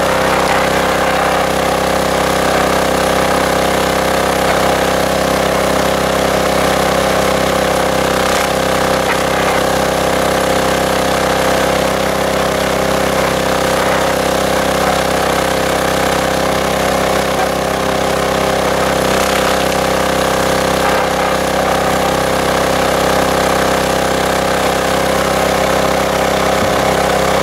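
Small air-cooled single-cylinder diesel engine on a hydraulic log splitter, running steadily at a constant speed.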